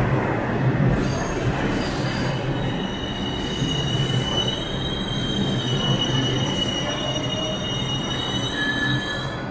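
New York City subway train moving along the station platform with a steady rumble. From about three seconds in, its wheels squeal on the rails with a high, wavering pair of tones.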